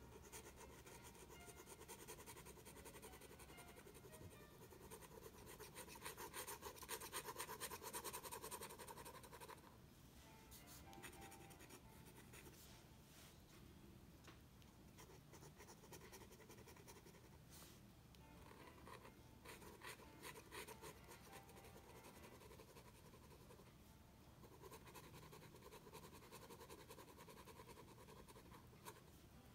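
Faint scratching of a fountain pen nib on sketchbook paper as quick hatching strokes are laid down. The strokes are loudest and densest from about six to nine seconds in, then come in sparser spells.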